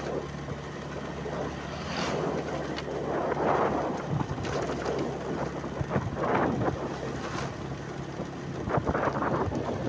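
A vehicle engine running steadily, with wind buffeting the microphone in irregular gusts.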